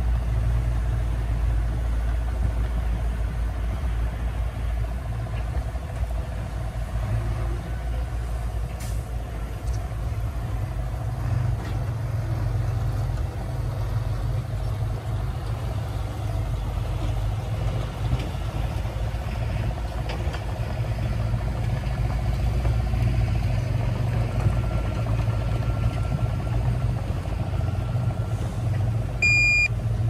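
Bulldozer's diesel engine running steadily with a low rumble, and a reversing alarm beeping briefly near the end.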